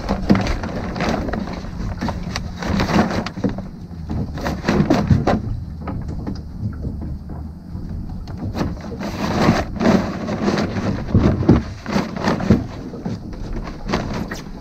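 Irregular knocks and rustles of rope and sail being handled aboard a small wooden sailing boat, over a low wind rumble and water against the hull.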